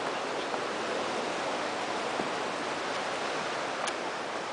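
Steady, even rushing noise with a faint click or two.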